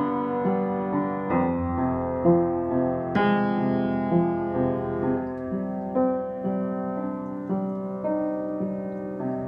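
Upright piano played solo: a slow melody of single notes about once or twice a second over held lower chords, with a fuller, louder chord struck about three seconds in.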